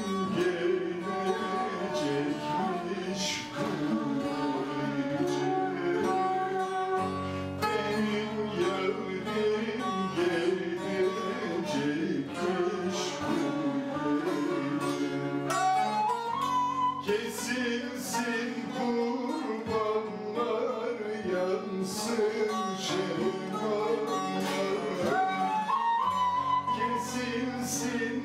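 Turkish folk tune (türkü) played on plucked strings: a long-necked bağlama (saz) leading, with a classical guitar and a short-necked lute accompanying.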